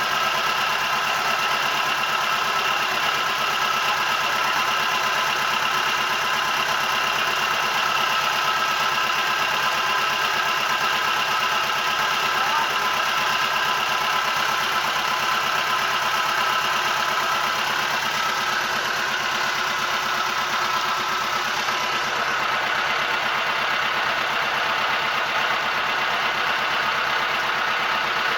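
A boat's engine running steadily, its drone even throughout.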